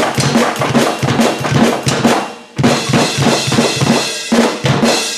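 Alesis Surge Mesh electronic drum kit played fast, with rapid kick-drum strokes from a double bass pedal under snare and tom hits. The playing breaks off briefly about two and a half seconds in, then resumes and ends on a cymbal ringing out and fading.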